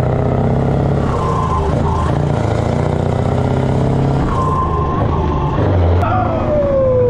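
Scania 580 V8 truck engine running steadily under load with its side exhaust pipe open, heard through the open cab window. Near the end a man's drawn-out vocal sound slides down in pitch.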